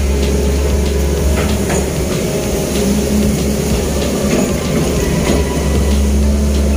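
Long-reach excavator's diesel engine running, heard inside the cab as a loud, steady low hum. For a few seconds in the middle the note turns rougher and unsteady while the boom and bucket swing under hydraulic load, with a few faint knocks.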